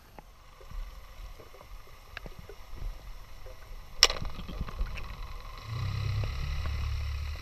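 Underwater sound: low water rumble with scattered small clicks, one sharp click about four seconds in, then a steady low hum near the end from a boat motor heard through the water.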